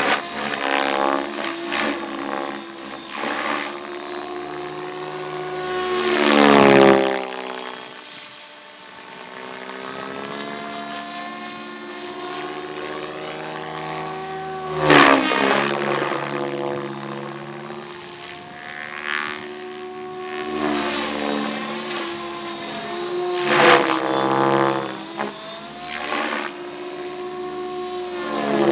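RC helicopter flying, its main rotor thrashing the air in a steady buzzing drone over a thin, high whine. It swoops close several times, about 7, 15 and 24 seconds in and again at the end. Each pass gets louder and its pitch swings sharply.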